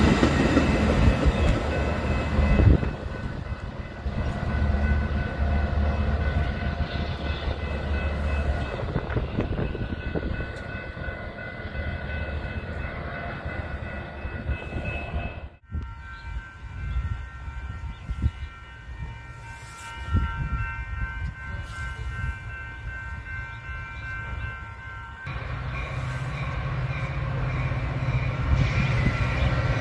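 Metra commuter trains: bilevel coaches rolling past with wheel clatter, then approaching diesel locomotives sounding multi-chime horns in long, steady blasts. The F40PH locomotive's horn sounds twice, and after it stops the engine and wheel rumble grows louder as the train nears.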